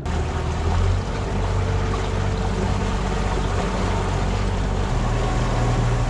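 Outboard motor running steadily as a small aluminium boat moves through the water, with the rush of water and wind over it; the engine note steps up slightly about five seconds in.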